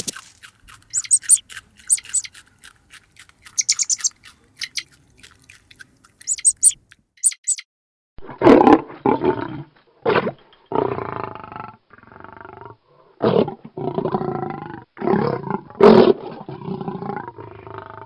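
Animal calls: first a series of rapid, very high-pitched short chirps for about seven seconds, then, after a brief pause, a run of lower, repeated pitched calls that bend up and down.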